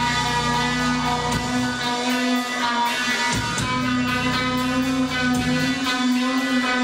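Live metal band heard through a club PA: electric guitars holding a sustained, droning pitch with overtones, over a low bass rumble that comes and goes.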